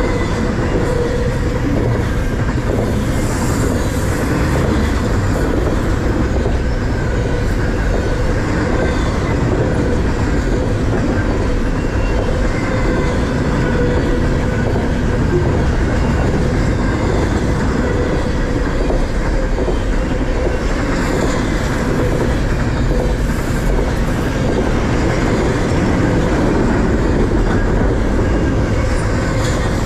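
BNSF freight train rolling by, with a steady, loud wheel-and-rail noise and a clickety-clack from the cars.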